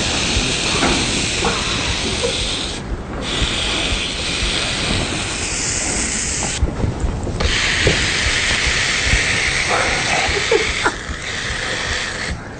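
Ham sizzling on a portable grill: a steady hiss that breaks off briefly about three seconds in and again about seven seconds in.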